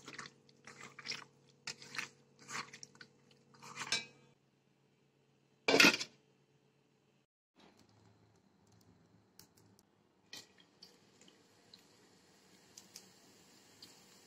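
A hand squishing and turning marinated chicken pieces in a steel bowl, a run of short wet squelches over the first four seconds, then a loud knock about six seconds in. After a short gap comes the faint sizzle of oil heating in an iron kadai, with a few small ticks.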